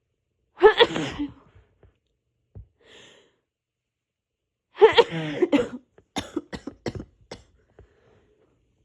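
A woman with a cold sneezing, her voice hoarse from the cold. There is one loud sneeze about half a second in and another about five seconds in, then a rapid fit of about six short sneezes.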